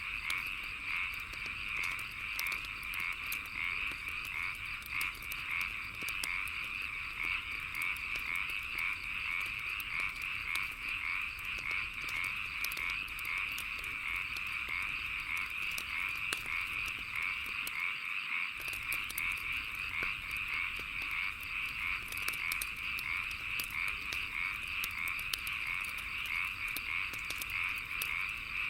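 A steady chorus of frogs croaking, a dense band of rapid calls, mixed with insects and the scattered sharp pops and crackles of a wood fire.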